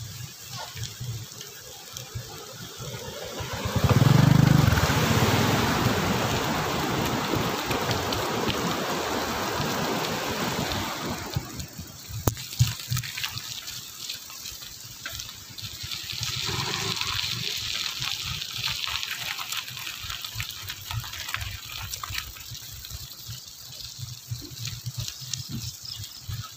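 Rain hissing while a bicycle rides on wet paths, a steady watery rush that swells about four seconds in and eases off after about eleven seconds, rising again a little later.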